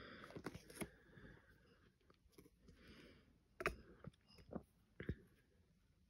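Faint, scattered clicks and taps of a diamond-painting drill pen picking square drills from a plastic tray and pressing them onto the canvas, with the sharpest click a little past halfway.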